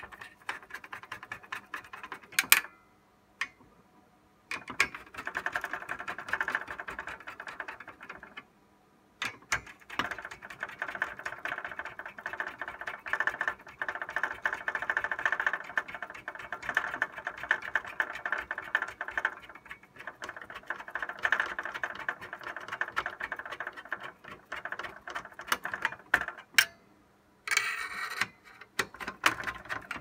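Rapid, dense mechanical clicking and rattling in two long stretches: from about five to eight seconds in, then from about nine seconds until shortly before the end. A few separate sharp clicks come before and after.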